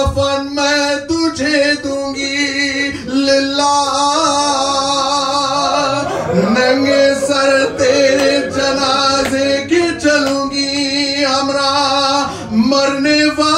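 A man's voice chanting an Urdu noha (Shia mourning lament) into a microphone, holding long wavering notes with a slide up into a new phrase about halfway through.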